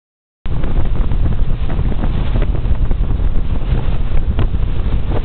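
Wind buffeting the microphone aboard a fast-moving ferry, over the rush of its churning wake: a loud, steady low rush that starts about half a second in.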